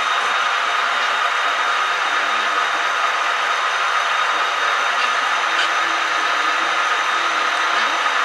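HO-scale model train running: a steady whir from the motor and the wheels rolling on the track, with a few faint ticks.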